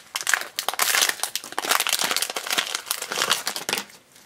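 Foil blind-bag wrapper crinkling rapidly as it is handled and pulled open by hand, stopping just before four seconds in.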